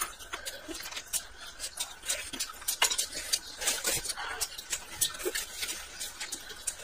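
A person chewing and smacking on a mouthful of steamed dumpling: an irregular run of short clicks and smacks.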